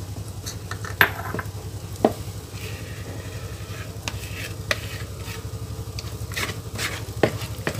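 Silicone spatula stirring and folding thick brownie batter in a bowl, a wet, sticky scraping with scattered light knocks of the spatula against the bowl, the sharpest about one and two seconds in. Oil is being folded in slowly so the batter does not deflate. A steady low hum sits underneath.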